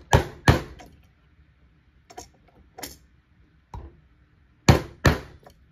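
A hammer lightly tapping a 3D-printed plastic pulley onto the shaft of an N20 gear motor, struck through a small piece of metal laid over the end: two sharp taps, several fainter ones, then two more sharp taps near the end.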